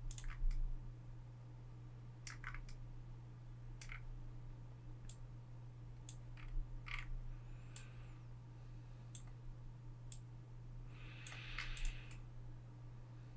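Computer mouse clicking at irregular intervals, with a denser run of clicks near the end, over a steady low hum.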